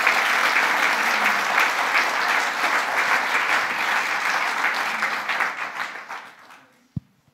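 Audience applauding, many hands clapping together, dying away about six and a half seconds in. A single short low thump follows near the end.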